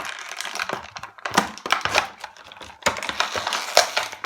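Small plastic toy figure and accessories being handled: irregular light clicks and taps with some crinkling.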